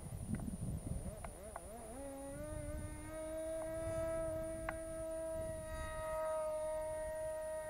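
MP-JET .061 model-aircraft engine running at high speed with an APC 6x3 propeller. Its pitch wavers up and down in the first couple of seconds, then holds a steady high note, with low wind rumble and a few sharp ticks.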